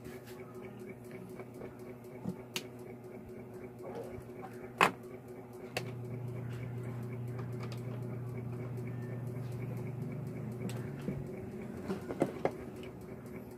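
Clicks and knocks of an amplifier board and its test leads being handled on a workbench, the sharpest about five seconds in and a few more near the end, over a steady low electrical hum that grows louder for about five seconds in the middle.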